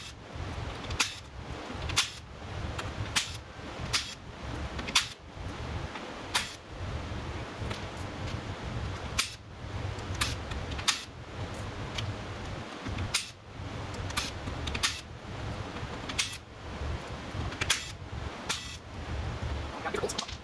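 Sharp clicks about once a second, some louder than others, over a low steady hum, typical of a socket ratchet working loose the bolts of a 4L80e transmission's oil pan.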